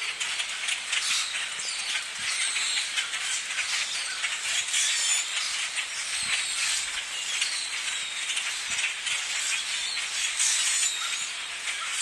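A large flock of birds calling all at once: a dense, unbroken chatter of many high chirps and squeaks.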